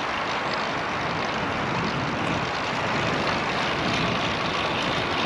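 Steady rush of wind on the microphone, mixed with road noise from a Cervelo Caledonia road bike rolling along a concrete street.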